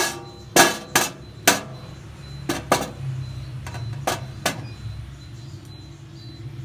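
Pieces of purple yam set down one after another onto a perforated stainless-steel steamer tray: about eight knocks and clinks of tuber on metal over the first four and a half seconds, the first one the loudest. A low steady hum runs beneath.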